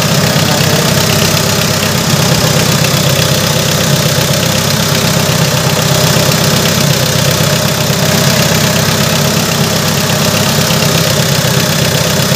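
Mitsubishi 4D56 four-cylinder diesel engine idling steadily after a top overhaul.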